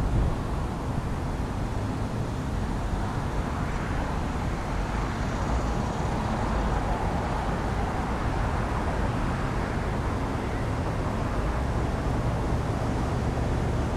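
Steady outdoor background of road traffic with a low rumble of wind on the microphone; no siren tone is sounding.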